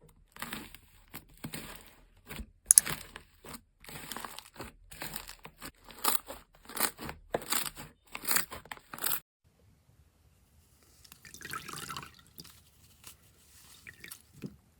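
Crunchy slime being pressed and squeezed by hand, crackling in quick strokes about twice a second, then stopping about nine seconds in; a softer, wetter squish follows a couple of seconds later.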